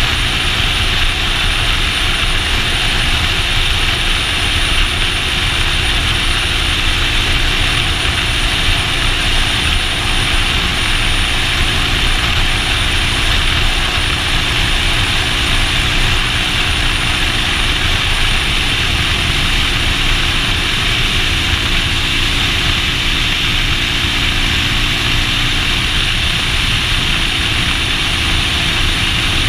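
Motorcycle running at a steady cruise, its engine hum under a steady rush of wind over the action-camera microphone.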